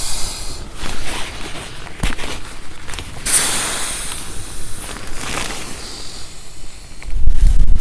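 Irregular rustling and scraping of camping gear fabric as it is handled and packed away. Near the end, wind buffets the microphone with a loud low rumble.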